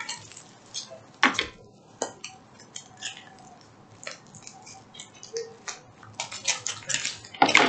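Plastic packaging of a diamond painting kit being handled and opened, giving scattered clicks and crinkles, with a louder run of clicks near the end.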